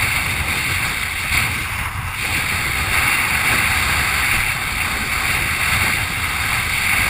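Wind blowing on the board-mounted camera's microphone, mixed with water rushing and spraying under a windsurf board sailing fast over choppy sea; a steady rush of noise.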